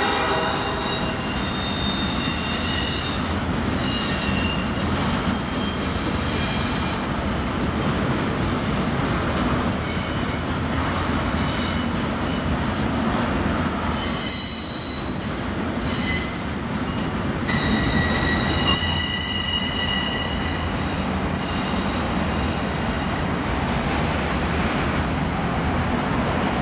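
Double-stack intermodal freight train rolling past: a steady rumble of wheels on rail, with high-pitched wheel squeal coming and going several times.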